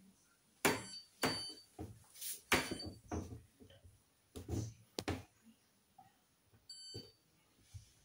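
Hoover washing machine control panel giving short electronic beeps as its buttons are pressed, about four times, with knocks and rubbing of a hand on the machine's front in between.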